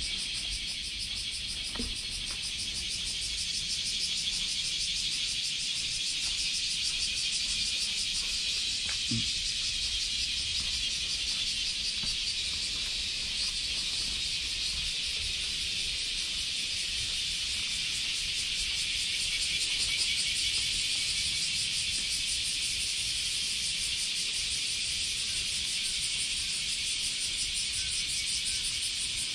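Chorus of summer cicadas singing together, a dense, steady, high-pitched drone that swells only slightly in loudness. There is a faint low rumble underneath.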